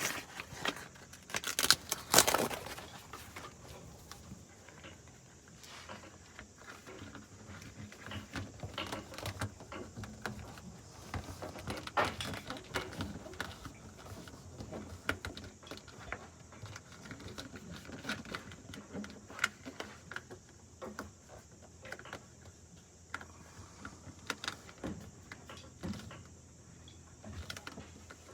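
Handling noise from working rubber repair tape over a hole in a Jeep's floor: scattered rustling, crinkling and small clicks, with two louder knocks about two seconds in.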